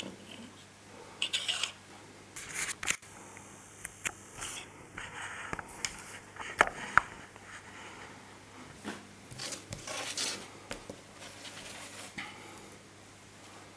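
Handling noise on a wooden tabletop: scattered scrapes and rustles with a few sharp clicks, as a small battery lead is plugged in and the battery pack and a phone are set down.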